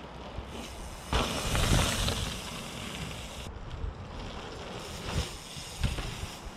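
Wind buffeting an outdoor microphone, rising to a louder gust about a second in, with a few low thumps near the end.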